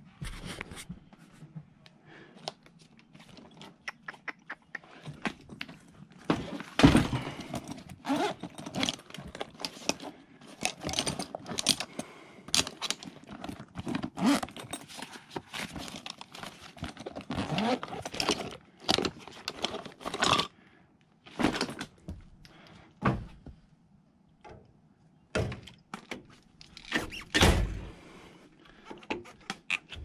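Tools and equipment being handled: irregular thunks, knocks and rattles. They are sparse at first, come thick from about six seconds in, and thin out to a few single knocks near the end.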